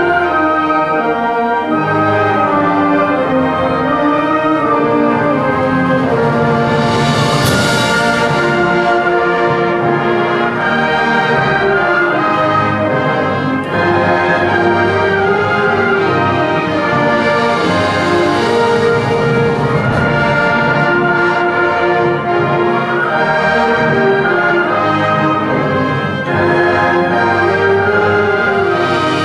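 Orchestral music led by brass, with sustained chords and moving melodic lines, and two swelling crashes in the high range.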